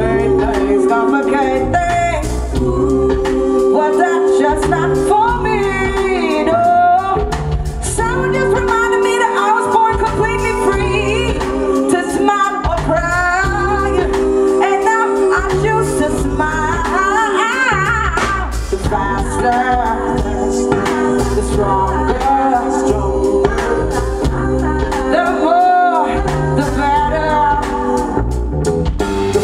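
Live band music: a woman sings a melody with gliding, ornamented notes over keyboard, drums and electric guitar, with a steady held note underneath.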